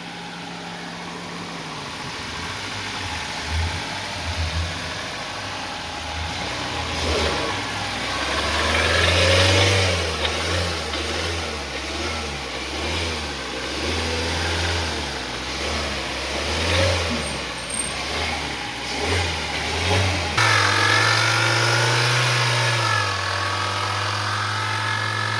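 Vehicle engine running with a low hum that wavers up and down; about twenty seconds in the sound suddenly shifts to a steadier, higher hum with a whine above it. The noise comes and goes, and the mechanic takes it for an alternator noise.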